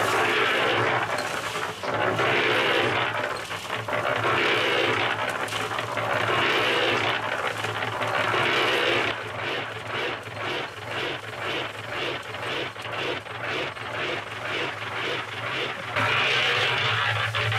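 Ozito electric concrete mixer running, noisy: a steady motor hum under the scraping rumble of concrete mix tumbling in the turning drum. The churning comes in loud surges, turns into quicker regular pulses through the middle, then surges again near the end.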